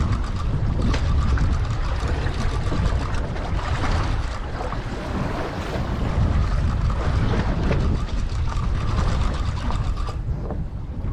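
Wind rumbling on the microphone over the steady noise of a boat on open sea, with no distinct events standing out.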